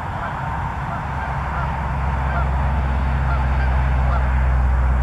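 Many overlapping distant bird calls over the low, steady rumble of highway traffic, which swells about two seconds in.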